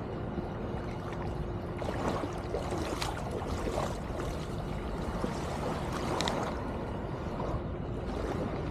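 Shallow water splashing and lapping at the shoreline as a man wades out through the shallows, with a few brief splashes about two, three and six seconds in.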